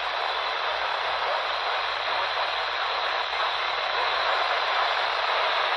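Steady hiss of radio static from a weather radio receiver on a weak NOAA Weather Radio signal (WXL42), with no clear voice coming through.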